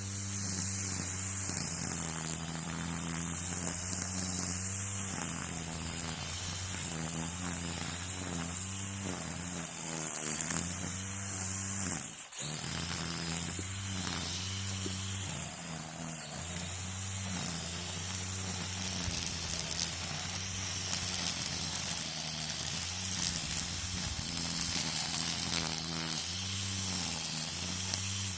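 Gas string trimmer (weed eater) running under load as it cuts, its engine speed rising and falling, with a brief drop in sound about twelve seconds in.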